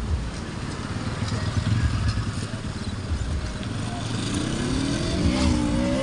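Even rushing noise from a river in spate, with a low, gusting rumble of wind on the microphone. From about four seconds in, a motor vehicle's engine passes, its pitch rising and then falling.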